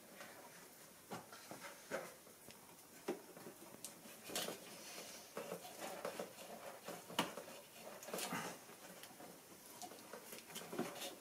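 Faint, scattered clicks and knocks, roughly one every second or two, from tools and parts being handled.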